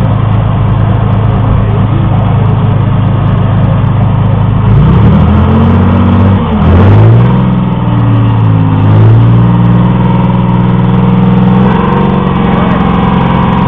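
Tracked armoured vehicle's engine running steadily, then revved up about five seconds in and held at higher revs as the vehicle drives forward off its jammed track.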